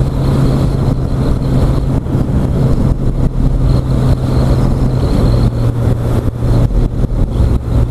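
Motorcycle engine running steadily while riding, heard through a helmet-mounted microphone over a dense low rumble. Its pitch steps down slightly about five seconds in.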